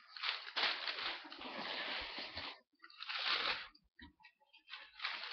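Crumpled newspaper packing paper rustling and crunching as it is pulled out of a cardboard box by the handful, in three bursts, the first and longest lasting about two and a half seconds.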